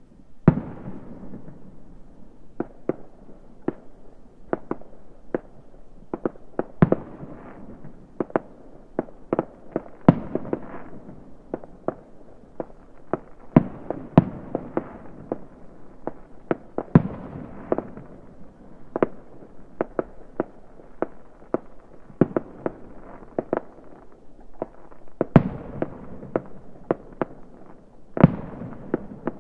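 Fireworks going off across the neighbourhood: a constant, irregular run of sharp bangs and pops, sometimes several a second, with a rolling echo between them.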